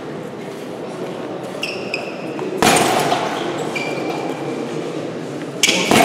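Room noise of a boxing gym with short metallic pings and clinks from punching-bag chains, and two sudden louder thumps, one about halfway through and one near the end.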